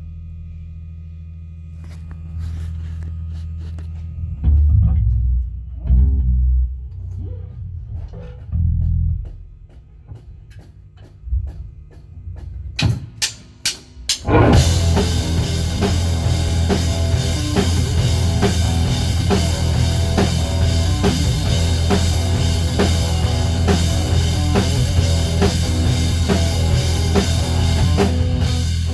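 Instrumental intro of a song: for the first half, sparse bass notes and drum hits, then a quick run of drum strikes. About halfway through, the full band comes in with drum kit and guitar and plays steadily.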